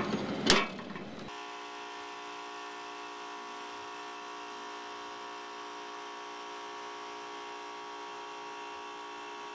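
A safety disconnect switch thrown on with a sharp clunk about half a second in. After that comes a steady hum of many even tones, the commercial air-conditioning unit with tandem compressors running once it has been switched on.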